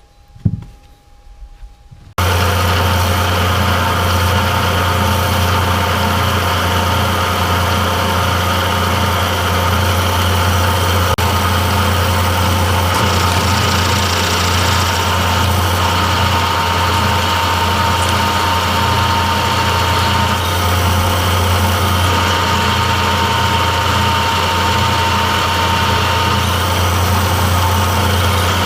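A single knock, then about two seconds in a metalworking machine tool suddenly begins running and holds a steady hum and whine.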